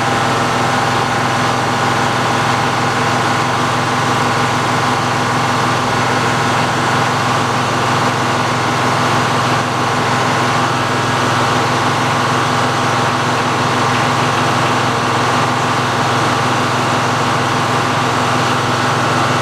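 Engine-driven Frick sawmill running steadily, its circular saw blade spinning free at speed without cutting, a steady engine hum under a steady higher whine.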